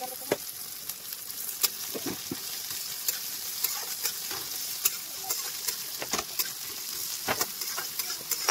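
Sliced onions sizzling in hot oil in a steel kadhai, with a steel spatula scraping and clinking against the pan at irregular intervals as they are stirred.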